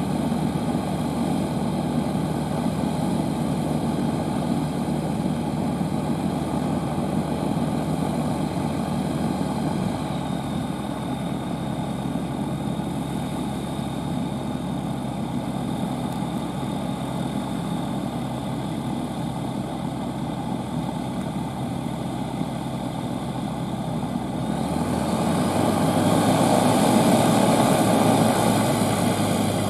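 FK9 ultralight's propeller engine running steadily at low revs, then revving up about 25 seconds in, getting louder as the aircraft starts to roll.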